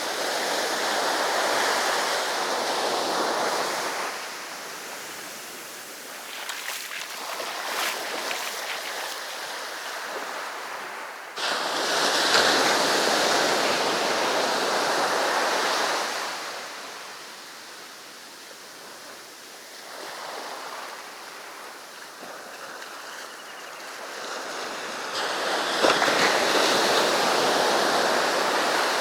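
Sea waves breaking and washing up a beach in slow swells: loud surges at the start, again with a sudden crash about twelve seconds in, and near the end, with quieter hissing wash between.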